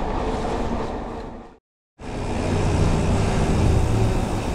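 Wind rush and tyre rumble from a gravel bike being ridden, which fades out to a brief dead silence about one and a half seconds in, then comes back louder with a deeper rumble.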